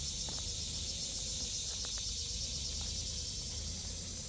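Steady, high-pitched chorus of insects chirring, over a low rumble and a few faint clicks.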